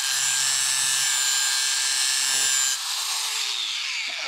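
DeWalt angle grinder grinding metal off a caster fork to clear a wheel that was rubbing. The disc comes off the work about three seconds in, and the grinder winds down with a falling whine near the end.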